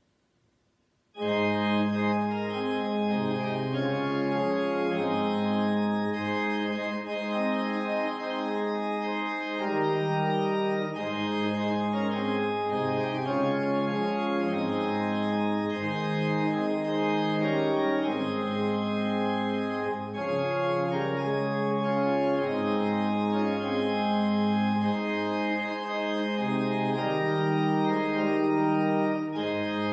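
Organ playing a hymn, beginning about a second in with held chords that move from one to the next.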